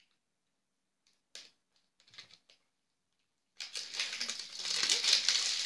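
A few quiet scissor snips, then loud crinkling and rustling of plastic wrapping being torn and pulled off an L.O.L. Surprise toy ball.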